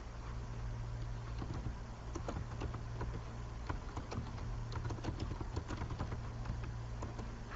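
Computer keyboard typing: irregular key clicks, several a second, over a steady low hum.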